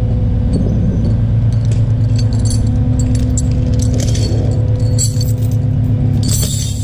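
Tow truck engine idling steadily, with light metallic clinks and jingles scattered over it.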